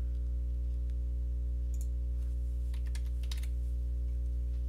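Computer keyboard keys typed, a single tap about two seconds in and then a quick run of taps, while a radius value is entered. Under it runs a steady low electrical hum, the loudest sound.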